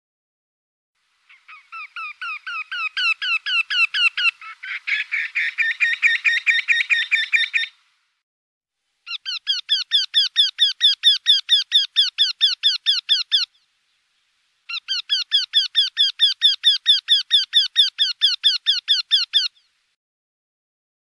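Eurasian wryneck singing: three runs of rapidly repeated calls, about six notes a second, each lasting several seconds. The first run swells louder, and a second, denser run of notes overlaps it partway through.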